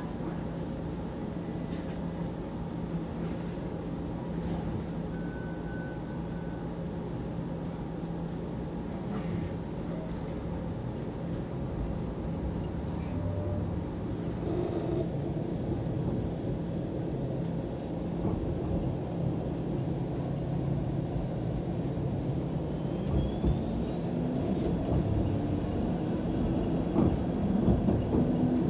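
Inside a Toronto Flexity Outlook streetcar: a steady electrical hum over a low rumble of the car and rails. About three-quarters of the way through, the traction motor's whine rises in pitch as the streetcar gathers speed, with a few knocks.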